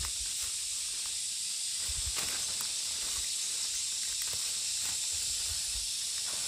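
Steady high hiss of outdoor ambience, with scattered light rustles and a few soft low thumps.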